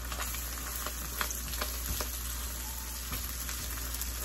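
Scrambled egg and diced onions sizzling steadily in a hot stainless steel pan, stirred with a silicone spatula that makes a few soft scraping clicks against the pan.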